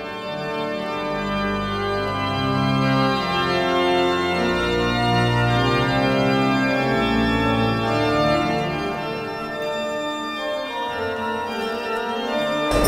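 Organ playing slow music in long held chords that change every second or two.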